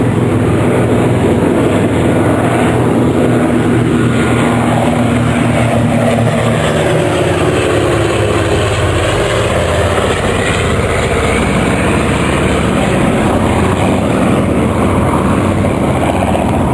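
Two Merlin-engined warbirds, a Hawker Hurricane and a Spitfire, flying a display with a steady propeller-engine drone. The engine note shifts in pitch about halfway through as they pass.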